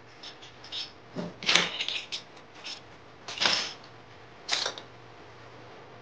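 Hobby micro servo whirring in short bursts as it swings the lock arm, the lock's response to an accepted RFID tag. There is a quick cluster of bursts in the first two seconds, then single ones about a second and a half apart.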